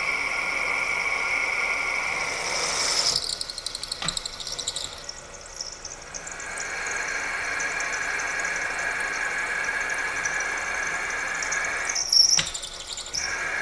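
Drill bit cutting a pilot hole in cast iron on a milling machine, giving a steady high-pitched squeal. The squeal drops away for a few seconds about three seconds in, with a click, then comes back. It breaks off again briefly near the end after a sharp louder moment.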